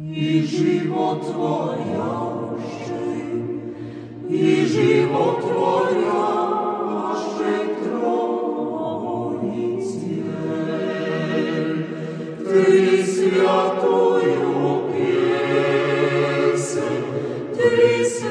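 A choir singing slow, held notes, growing louder about four seconds in.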